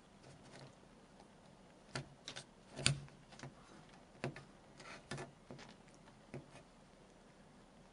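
A cat pawing and batting at a compact camera's wrist strap: a run of irregular soft taps, clicks and scuffs against the camera body, the loudest a little under three seconds in.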